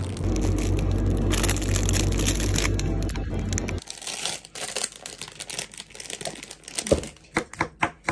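Kitchen sounds: a loud crunching, grinding noise over a steady low hum that stops suddenly about four seconds in, then scattered light clicks and a quick run of sharp, evenly spaced knocks near the end.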